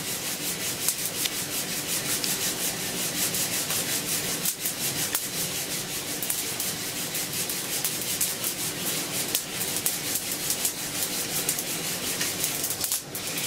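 Coffee beans rattling and swishing inside a lidded mesh hand roaster as it is shaken rapidly back and forth over a gas flame, a steady dense rattle. The beans are at a dark roast, past French roast, near the end of second crack.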